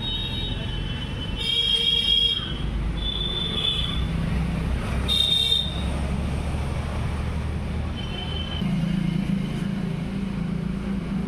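Road traffic: a steady low engine rumble with four short, high-pitched horn toots, the longest about a second in.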